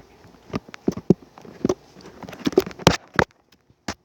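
Handling noise: a run of irregular taps and clicks, loudest about three seconds in, then only a single click near the end.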